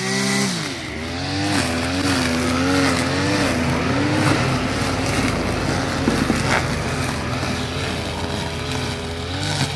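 Petrol brush cutter running at cutting speed. Its engine pitch drops about half a second in, then keeps wavering up and down as the spinning metal blade bites into grass and weeds.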